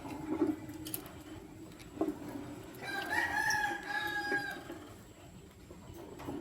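A bird's single long, drawn-out call, one held note lasting nearly two seconds, starting about three seconds in, over a steady low background and a few sharp taps.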